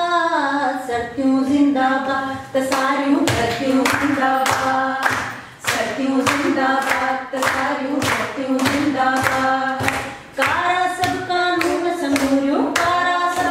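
A woman singing an anthem without accompaniment, with a group clapping along in time from about three seconds in, roughly two claps a second.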